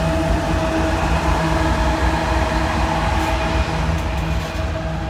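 Norfolk Southern freight train passing close by: the trailing GE ES44AC diesel locomotive rumbles past, then covered hopper cars roll by on the rails. A loud, steady rumble runs throughout, with a steady tone above it.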